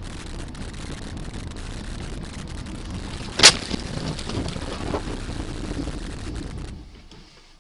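Steady road and engine rumble, broken about three and a half seconds in by one loud sharp bang of a car collision, followed by a few smaller knocks and rattles; the sound cuts off abruptly near the end.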